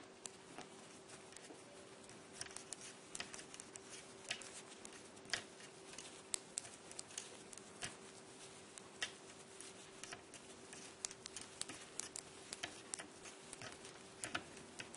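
Metal knitting needles clicking and tapping irregularly, several small clicks a second, as stitches are knitted by hand.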